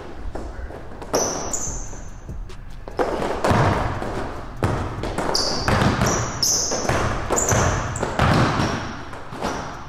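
A basketball is dribbled on a hardwood court, its bounces thudding one after another, while sneakers give short high squeaks several times as the players cut and drive.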